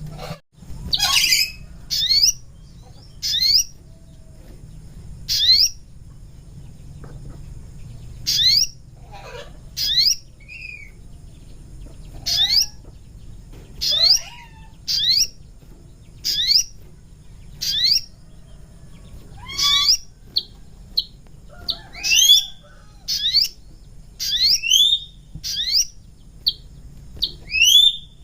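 North Moluccan sogon calling: short, thin whistled notes that each sweep sharply upward, repeated about once a second and coming in quicker pairs and runs in the second half. A recording made for luring sogon.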